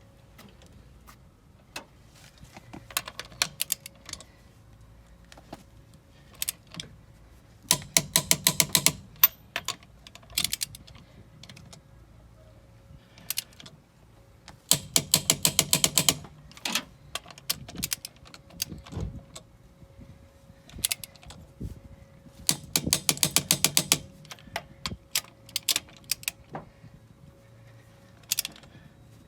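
Hand ratchet wrench clicking in quick runs as it is swung back and forth, tightening bolts, with single ticks and knocks of tools between the runs. There are three long runs, about eight, fifteen and twenty-three seconds in, and shorter ones around them.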